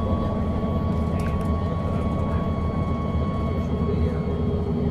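MAN NG313 articulated city bus's 310 hp diesel engine idling steadily, with a thin high whine over the low rumble.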